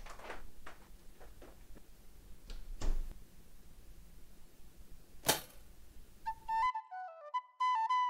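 Quiet room sound with a few light knocks and one sharp smack about five seconds in. About a second later the sound cuts to music: a quick, stepping melody on a flute-like wind instrument.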